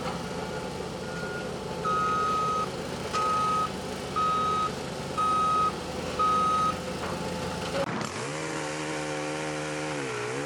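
Truck reversing alarm beeping five times, about one beep a second, over a running engine. Then a different engine runs steadily, its pitch dipping briefly and coming back near the end.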